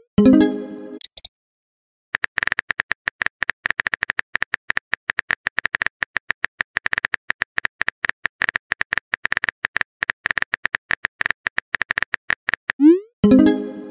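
Simulated phone-keyboard tap clicks from a texting-story app, a fast run of identical clicks as a message is typed out. A rising whoosh and a short chime, the app's message-sent sound, come just after the start and again near the end.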